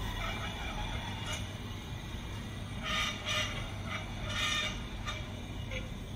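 R211T open-gangway subway train running along the track with a steady low rumble. A cluster of short, high squeals comes about halfway through.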